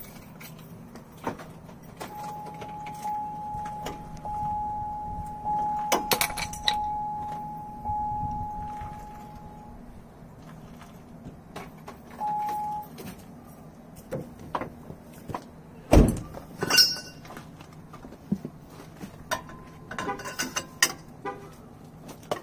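Hummer H2, switched on, giving a steady high tone for about eight seconds and again briefly a couple of seconds later. A single loud thunk comes about two-thirds of the way through, followed by light metal clicks.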